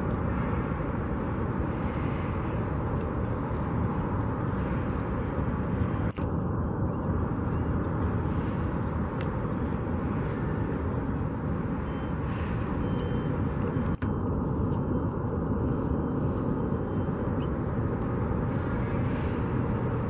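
Steady low outdoor rumble, like wind or traffic noise on the microphone. It is broken by two very short dropouts, about six and fourteen seconds in.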